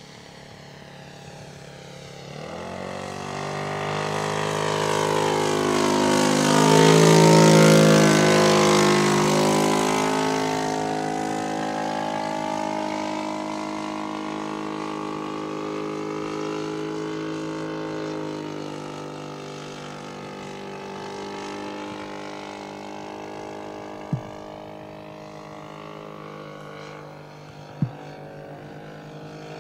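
Engine and propeller of a quarter-scale SE5a model biplane flying past: the drone grows louder over the first few seconds, peaks about seven seconds in and drops in pitch as the plane passes, then settles into a fainter steady drone. Two sharp clicks near the end.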